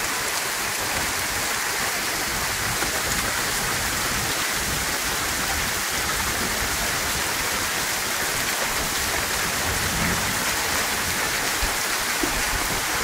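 Steady rain falling, an even hiss that neither swells nor fades.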